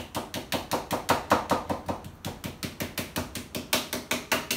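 Chef's knife dicing raw bacon on a cutting board: quick, even chopping strokes of the blade hitting the board, about five a second.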